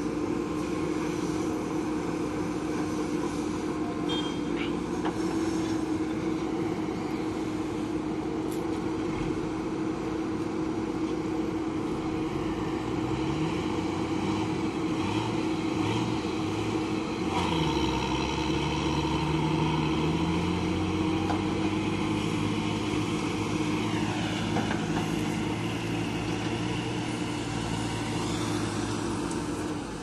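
Diesel engine of a JCB 3DX backhoe loader running steadily while it works, with the engine of a loaded dump truck nearby. About halfway through the engine note grows louder and climbs in pitch for several seconds as an engine revs up under load.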